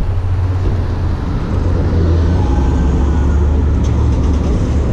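City street traffic: a motor vehicle running close by with a steady low rumble that grows a little louder about two seconds in.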